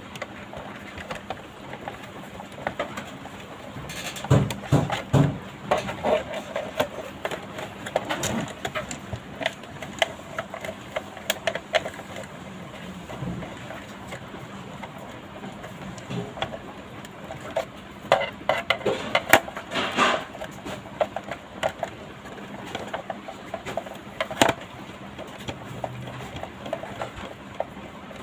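Plastic case of a portable radio being handled and turned over on a rubber bench mat: irregular clicks, taps and knocks, with louder clusters of knocks about four seconds in and again around eighteen to twenty seconds.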